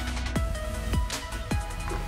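Electronic dance background music with a heavy bass line and repeated falling bass drops.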